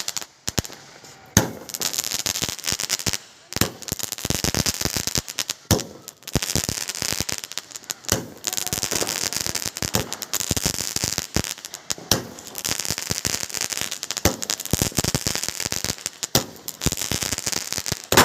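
Fireworks going off: a sharp bang roughly every two seconds, with dense crackling in between.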